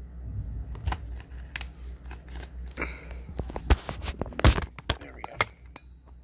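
Plastic DVD case handled and snapped open: a run of clicks and rattles, with two sharp snaps about three and a half and four and a half seconds in.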